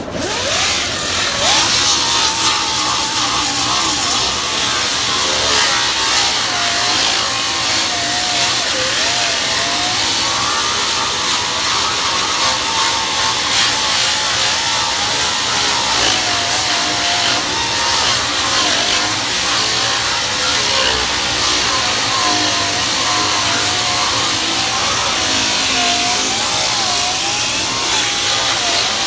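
Grinder running steadily against the sheet metal of a car's rear quarter panel, stripping off undercoating and paint; its whine wavers up and down as the load on the disc changes.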